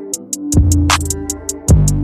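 Background electronic music with a drum-machine beat: quick even hi-hat ticks over deep bass notes and a sustained synth line.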